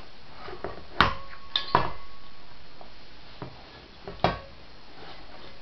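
A stainless steel colander clanking as a baby handles it, a few sharp metal knocks. The loudest comes about a second in and rings briefly, two more follow close behind, and another comes near the end.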